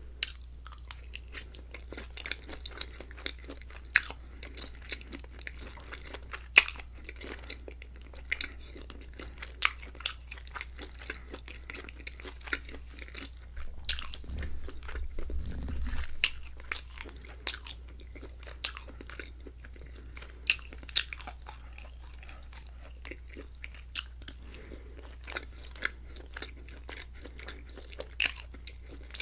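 Close-miked chewing of creamy alfredo pasta: wet mouth clicks and smacks, with a low hum underneath. A brief louder low rumble comes about halfway through.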